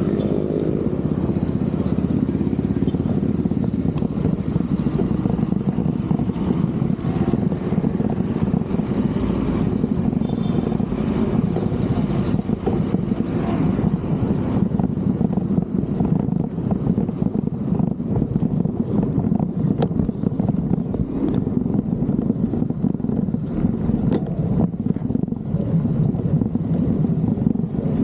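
Steady rushing of wind on a cyclist's action-camera microphone while riding on city roads, with motor traffic running alongside.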